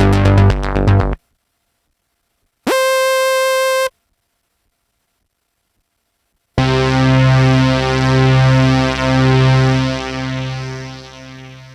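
Dave Smith Instruments Mopho monophonic analog synthesizer playing preset patches one after another. A rhythmic sequenced pattern stops about a second in, then comes a single bright held note of about a second, then a long low note that swells and pulses several times before fading out.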